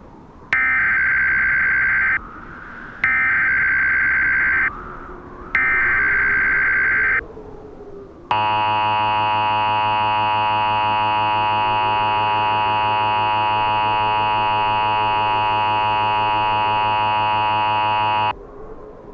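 Emergency Alert System tones: three short bursts of SAME header data, each a harsh digital screech of about a second and a half with a short pause between, then the two-tone EAS attention signal, which sounds steadily for about ten seconds and cuts off suddenly.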